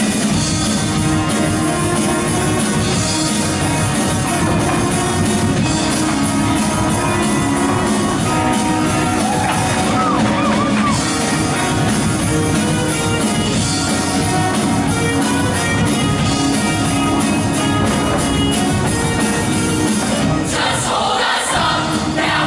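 Show choir singing over loud instrumental accompaniment, with a burst of voices near the end.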